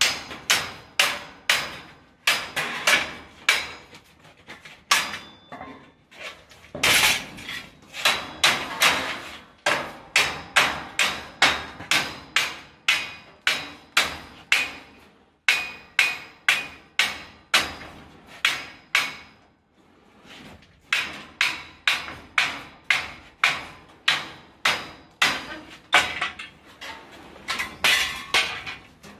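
Hammer blows on steel scaffolding fittings in quick runs of about three strikes a second, each with a slight metallic ring, broken by short pauses. The ledgers are being knocked tight.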